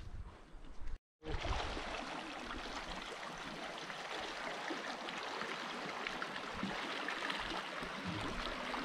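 A shallow mountain stream running over rocks, a steady rush and babble of water. It comes in just after a low rumble in the first second, which cuts off in a brief gap.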